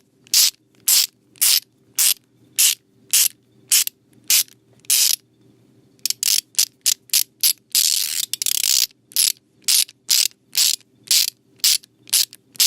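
Ratchet wrench clicking in repeated short strokes, about two a second. After a short pause about five seconds in, the strokes come quicker, with one longer unbroken run of clicking, then settle back into a steady stroke rhythm.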